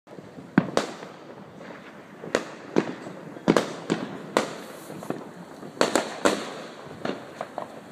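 Neighbourhood fireworks going off: about a dozen sharp bangs and pops at irregular intervals, some in quick pairs, each with a short echoing tail.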